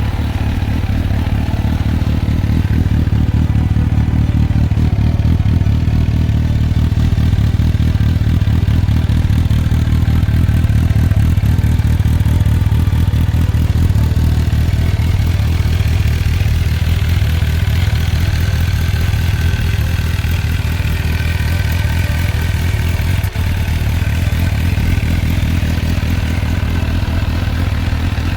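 MV Agusta Brutale 750S's inline-four engine idling steadily, running as the freshly installed replacement engine.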